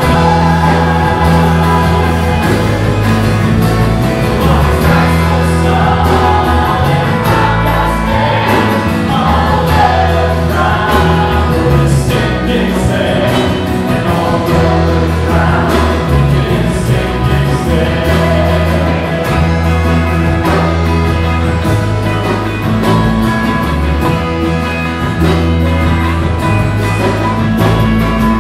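Church choir singing a gospel hymn together with a contemporary worship band, loud, over a bass line that changes note every second or two.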